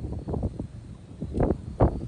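Strong wind buffeting the microphone in uneven gusts, with two harder gusts near the end.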